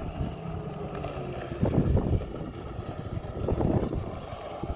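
Wind buffeting the microphone in gusts, over the drone of a jet ski's engine out on the water.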